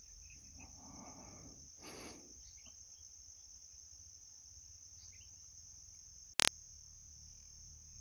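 Steady, high-pitched insect chirring, with one short sharp click about six seconds in.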